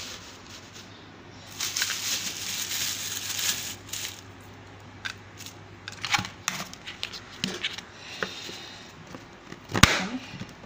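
Tissue paper rustling and crumpling as it is tucked into a plastic container, followed by a few small clicks of handling. Near the end comes one sharp click as the plastic lid is pressed shut.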